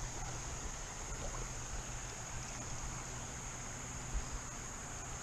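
Creek ambience: a steady wash of flowing water under a constant high-pitched insect drone, with a faint knock about four seconds in.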